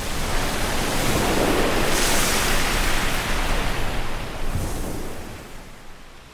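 Rough open sea: big waves breaking and churning into spray. It is a loud rushing surge that swells in over the first second, peaks about two seconds in, and fades away near the end.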